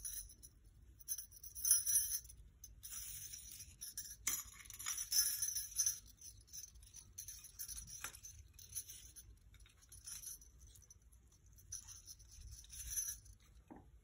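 Faint light metallic jingling and scraping of thin steel wire being wound by hand around a wooden dowel, with a couple of small clicks.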